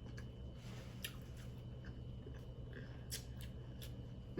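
Faint chewing and eating sounds from a crawfish and snow crab meal, with a few soft clicks of shell or utensils.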